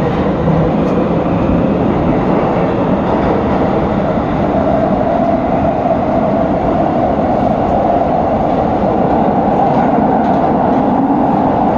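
Metro train running at speed through a tunnel, heard from inside the car: a loud, steady rumble of wheels on rail. A steady whine joins it about four seconds in.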